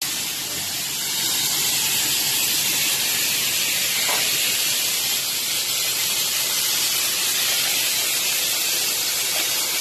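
A loud, steady, high-pitched hiss with no breaks, growing a little louder about a second in.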